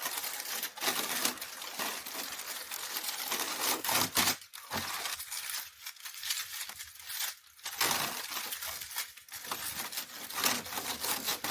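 Paper crinkling and crackling as it is handled, with many small clicks, in irregular stretches broken by short pauses.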